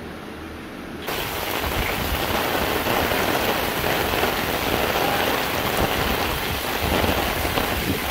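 Heavy rain falling on pavement and open ground, a steady hiss of rain. About a second in it jumps suddenly louder and brighter, then holds steady.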